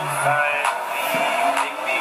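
Background pop music with a steady beat and a sung vocal line.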